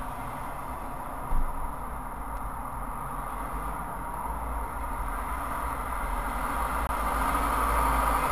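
Steady low engine and traffic rumble heard from inside a car stopped on a motorway, with a single short knock about a second and a half in. The noise swells gradually louder toward the end.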